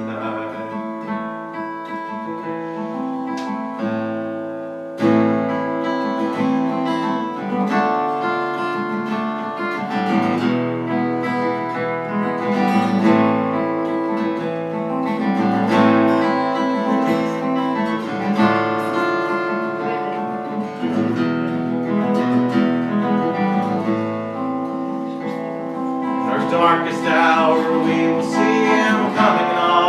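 Acoustic guitar strummed in a slow gospel accompaniment, steady chords ringing on.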